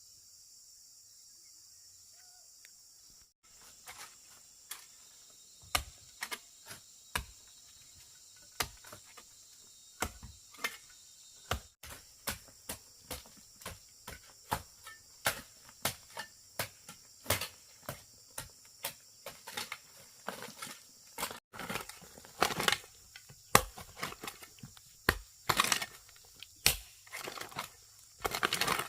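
Crickets chirring steadily. After about three seconds a run of sharp knocks and cracks from work on wood or bamboo begins, one or two a second, coming faster and louder in the last several seconds.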